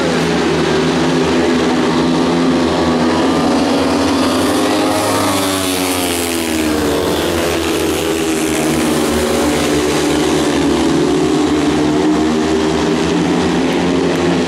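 Speedway motorcycles' 500cc single-cylinder methanol engines running flat out around a dirt oval, a loud, steady engine note whose pitch dips and rises about halfway through as a bike passes close.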